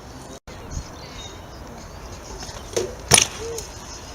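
BMX bike being ridden, with one sharp clack about three seconds in, as of the bike landing or striking an obstacle, and a light thump earlier. The sound drops out for a moment just after the start.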